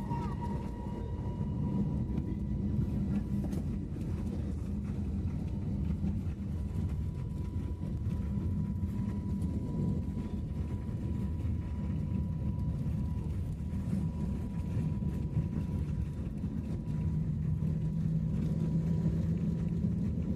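Cabin noise of an Airbus A321neo during takeoff: a steady, heavy rumble with a faint steady whine from the engines at high power.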